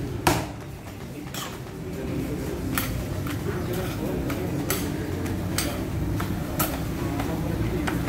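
Sharp knocks and clinks at a roti canai cook's steel counter and flat griddle as dough is worked and rotis are tended, about one a second, the loudest just after the start, over a steady low background murmur.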